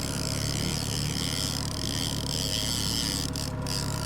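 Boat motor running steadily while trolling, a constant low hum with water and wind noise over it.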